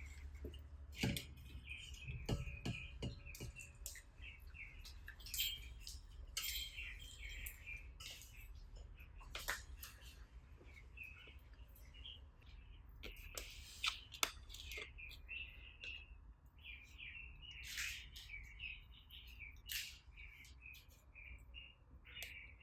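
Slime being pressed and worked by hand, giving faint irregular sticky clicks and pops, with high, wavering chirp-like squeaks throughout.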